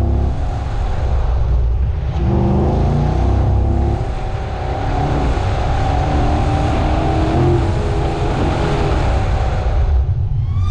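Chevrolet Corvette Z07's supercharged 6.2-litre V8 at full effort on an autocross lap, its note climbing under throttle and dropping back several times between the cones. It eases off near the end.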